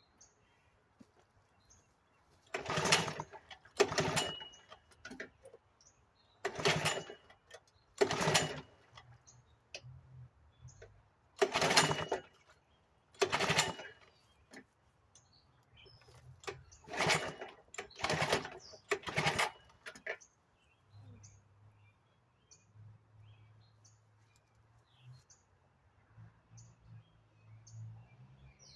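A 1975 Sears Gamefisher two-stroke outboard is pull-started about nine times, each pull of the recoil starter cord a short loud rasp. The engine sputters between pulls and then catches, running at a low steady idle for the last several seconds.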